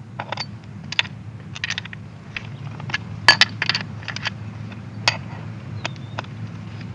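Irregular metallic clicks and clinks of a skateboard's wheels and trucks being handled and adjusted by hand, with a cluster of louder clinks about halfway through, over a steady low hum.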